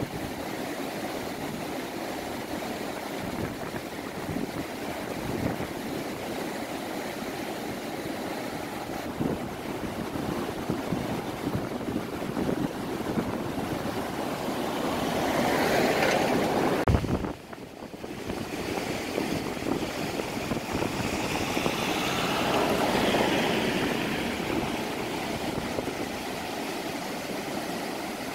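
Fast-flowing floodwater rushing past a bridge's piers: a steady rushing noise that swells louder twice, about halfway through and again later, with a brief drop just after the first swell.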